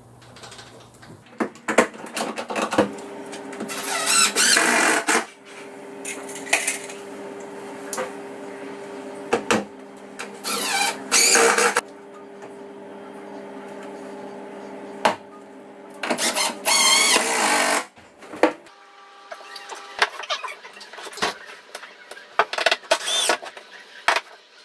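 Hand fitting work on a wooden bed panel, with plastic caps being pressed over screw heads: scattered clicks and knocks and three louder noisy stretches of a second or two. A steady low hum runs under the middle part and stops a few seconds before the end.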